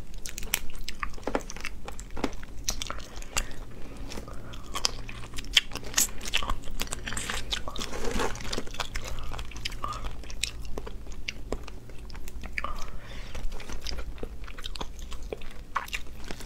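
Boiled crustacean shells cracking and being pulled apart by hand, mixed with biting and chewing of the meat: many short, crisp cracks and crunches.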